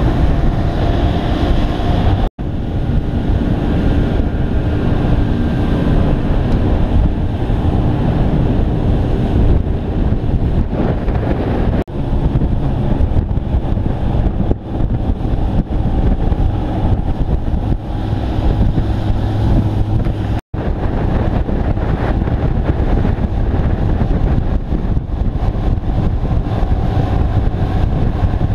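Wind buffeting the microphone and the rush of water from a Shark Cat catamaran running at speed, with its outboard motors droning underneath. The sound cuts out for an instant twice.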